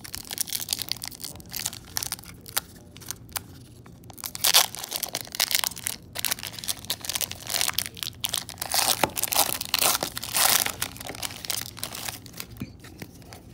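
Foil wrapper of a Pokémon Fusion Strike booster pack crinkling and tearing open by hand, then rustling as the cards are slid out. There are louder tearing rustles about four and a half seconds in and again around nine to ten seconds.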